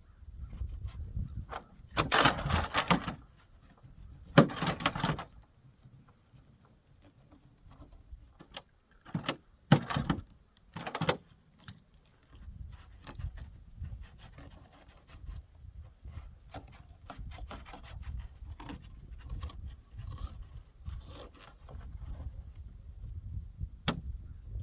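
Knife cutting and scraping through a crappie's skin and flesh behind the gill plate: a few loud scraping strokes of about a second each, then quicker scrapes and clicks, over a low rumble.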